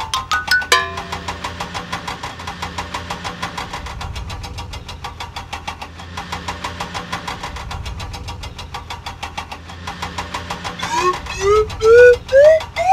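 Cartoon toy-vehicle engine sound effect running with a rapid, even chugging. A quick run of rising notes opens it, and near the end comes a series of loud rising swoops.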